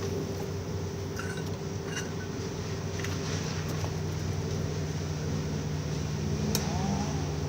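A ratchet with a cheater pipe being strained against an over-tightened lug nut: a few faint metallic clicks and one sharper click late on, over a steady low background hum.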